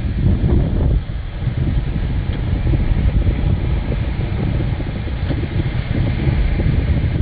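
Wind buffeting the microphone, a steady low rumble, over the wash of breaking surf.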